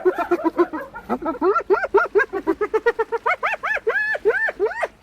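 Spotted hyena giggling: a rapid string of short, pitched, rising-and-falling yelps, several a second, the pitch climbing higher in the second half.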